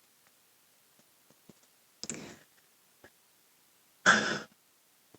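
A woman's breathing in a pause between sentences: a soft breath about two seconds in and a louder, sigh-like breath about four seconds in, with a few small mouth clicks between them.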